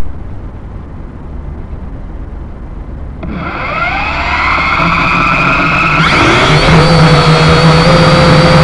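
Syma X5HC quadcopter's motors and propellers spin up from rest about three seconds in, a rising whine. About six seconds in the pitch jumps higher as the throttle goes up and it lifts off, then holds a steady high whine, heard close up from the drone's own camera.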